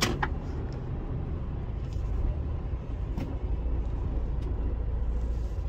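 Mercedes-Benz Actros truck's diesel engine running while the truck turns at low speed: a steady low rumble, with a few faint clicks.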